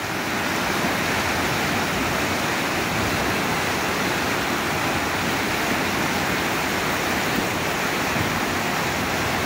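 Whitewater rapids of a fast, rocky river rushing steadily, an even, unbroken wash of water sound.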